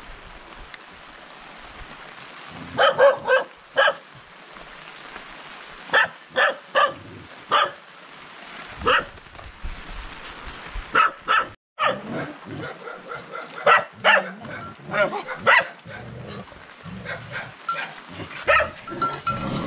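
A dog barking, in short runs of two to four barks repeated every few seconds, over a steady hiss of rain.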